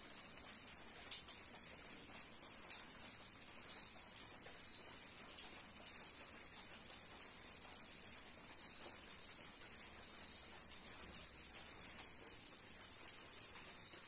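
Faint, steady high-pitched drone of cicadas, with irregular sharp ticks of raindrops falling through it.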